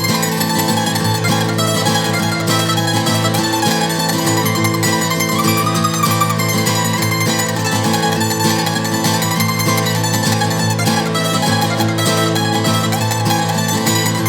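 Background music: an instrumental break of a folk-rock song with fast-picked mandolin over steady bass and guitar.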